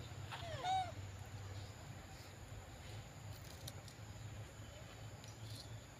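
Baby macaque squeaking: a few short calls, each rising then falling in pitch, about half a second in. Under them runs a faint low hum, with a few soft ticks later.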